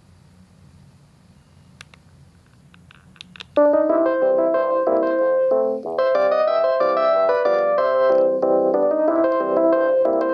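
A pause between ringtones with a few faint clicks, then about three and a half seconds in a Panasonic KX-TGD62xE cordless phone starts playing one of its polyphonic ringtones: a quick, electronic piano-like melody over chords that repeats its phrase.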